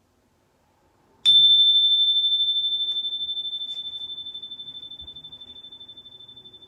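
A small bell struck once, ringing a single clear high tone that fades slowly with a gentle pulsing waver.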